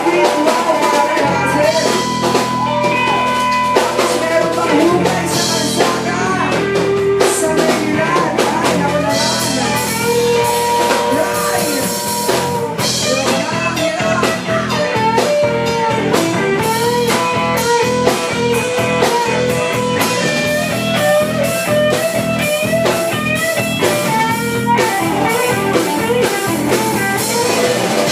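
A band playing a rock song, with guitar and drum kit.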